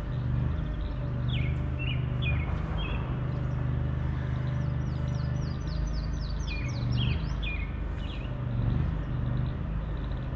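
Songbirds singing over a steady low motor hum. A few sharply falling whistled notes come first, then a fast run of about ten high notes in the middle, then more falling notes.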